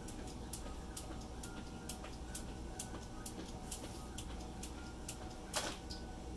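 Jump rope skipping on a concrete patio: steady light ticks of the rope striking the ground, about two a second, with one louder slap about five and a half seconds in.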